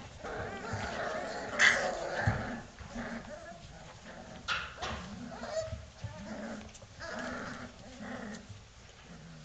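Four-week-old Vizsla puppies yipping and whimpering as they play, in short irregular bursts, with scuffling and a few sharp knocks.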